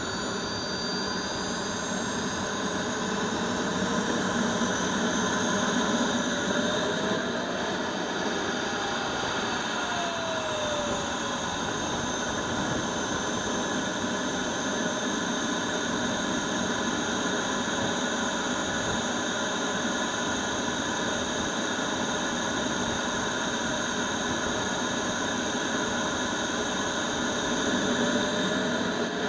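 Radio-controlled model jet's engine running on the ground with a high whine over a steady rush. The whine climbs and falls back about eight to eleven seconds in, then climbs again near the end, as the throttle is opened and eased.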